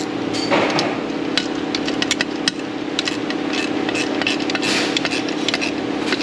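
Ratchet wrench clicking in short, irregular runs as a bolt is tightened. Under it runs a steady hum from an A/C service machine's vacuum pump evacuating the system.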